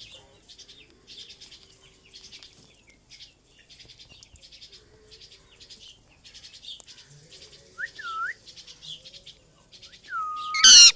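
Rose-ringed parakeet chattering softly, with two short whistles about eight seconds in, then a whistle that breaks into one loud, harsh screech near the end.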